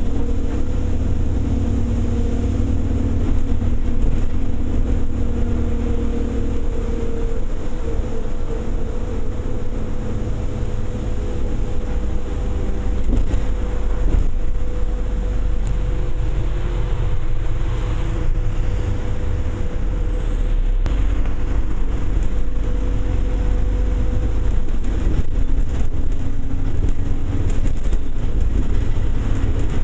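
Rail replacement bus under way, heard on board: steady engine and road rumble with a held whining tone from the drivetrain that fades out about four-fifths of the way through.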